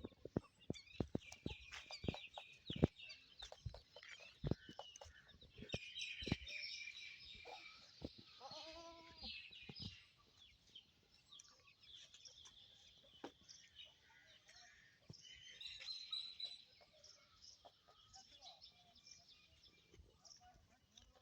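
Faint farmyard sounds: chickens clucking and small birds chirping, with scattered knocks in the first few seconds and one short, arched animal call about nine seconds in.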